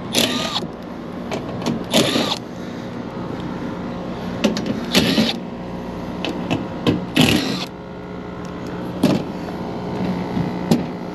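A three-phase packaged AC unit running with its compressor on, a steady machine hum. The compressor is running backwards because its power is out of phase, so it is not pumping. Four short rushing noises rise over the hum.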